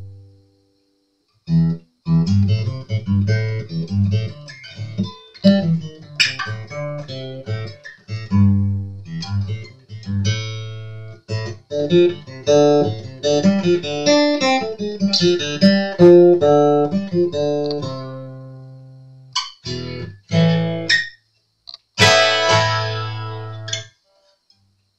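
Acoustic guitar played by hand, picking single notes and chords in a loose run with a few short pauses, each note ringing and fading. The freshly restrung guitar is holding its tune on its new tuners.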